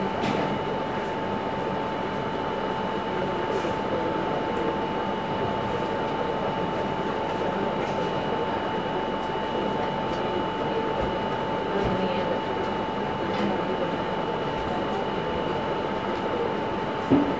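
Steady machine noise: an even hiss with a constant whine held on two pitches, with a few faint ticks and a sharper click near the end.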